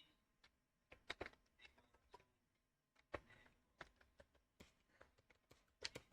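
Faint, irregular clicks of computer keyboard keys being typed, a few strokes a second with pauses between them.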